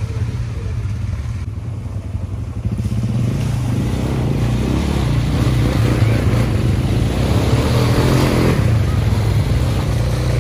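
Several quad bike (ATV) engines running as they ride past, a steady low rumble that grows louder about three seconds in.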